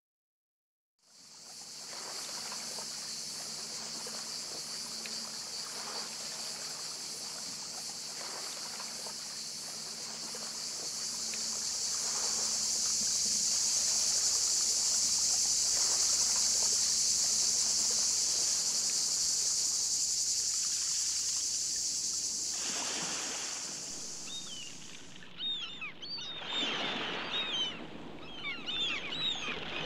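A dense, steady, high-pitched chorus of cicadas that swells midway and cuts off about 25 seconds in, giving way to many gulls calling in quick, short cries over washing water.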